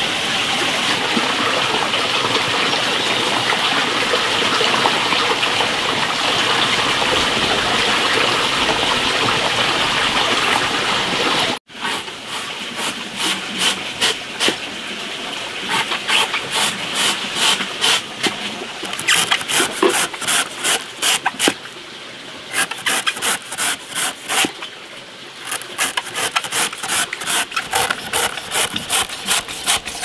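Steady rushing of water for about the first twelve seconds, which cuts off abruptly. After it comes a quick run of sharp scraping and chopping strokes, several a second, in bursts with short pauses, louder in the second half.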